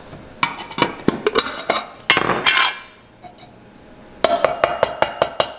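A screwdriver prying the lid off a metal can: metallic clicks, knocks and a scrape. Near the end, a quick run of about eight sharp, ringing metallic taps as a brush is tapped against the can's rim.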